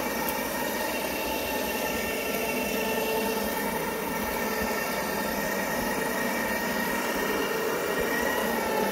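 Counter-rotating-brush (CRB) carpet cleaning machine running steadily, its motor giving a constant whine and hum while the brushes scrub the carpet.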